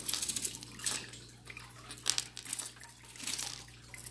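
Costume jewelry clinking and rustling as it is rummaged through, in about six short bursts.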